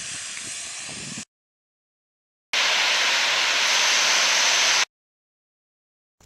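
Steady hissing noise in two stretches, the second louder and about two seconds long, each cut off abruptly with dead silence between.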